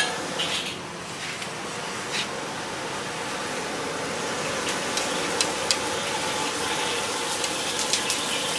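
Steady noisy background of a street-food stall: a continuous hiss and hum, with a few light clicks in the second half.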